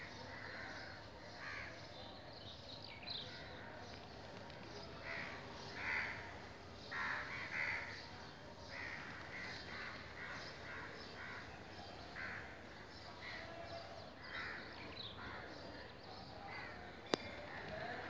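A flock of crows cawing faintly, with many short calls scattered throughout and a few louder ones in the middle. A single sharp click near the end.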